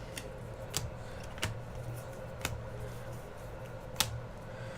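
Trading cards being handled and flipped through one at a time, giving a few light clicks at irregular intervals, the sharpest about four seconds in.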